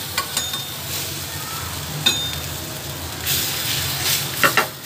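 Pizza base frying in butter in a non-stick pan: a steady sizzle that swells a little after about three seconds, with a few sharp clicks of a metal spatula pressing and turning it, two close together near the end.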